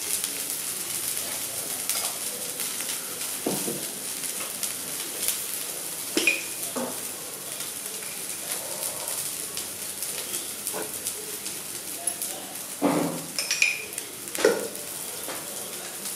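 Cauliflower florets frying in oil in a nonstick pan, a steady sizzle with several scrapes and knocks of a utensil against the pan as they are stirred. The loudest strokes come near the end.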